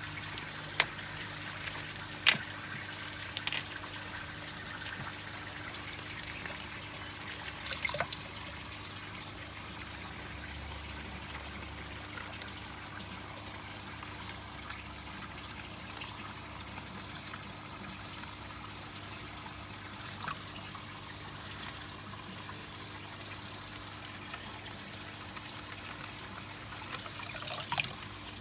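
Water trickling steadily in a plastic tub, with a few sharp clicks in the first seconds and brief splashes about eight seconds in and near the end as plastic bags are emptied into the water.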